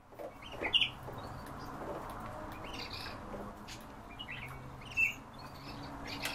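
European bee-eaters giving short, bright calls, about five times, a second or so apart, over a faint steady low hum.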